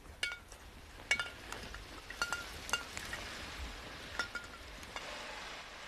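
Irregular metallic clinks and rattles, about half a dozen short ringing chinks, from the rifles and gear of soldiers scrambling through snow to take cover. Near the end a rushing vehicle noise begins to rise as the truck approaches.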